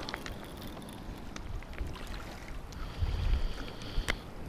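Wind rumbling on the microphone over the rush of a fast-running river, with scattered small clicks and a sharp knock just after four seconds in.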